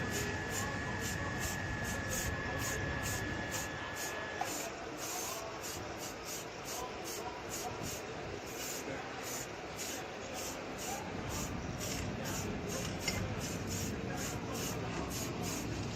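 Aerosol spray-paint can hissing steadily as paint is sprayed onto a car body panel, with a faint steady tone through the first few seconds.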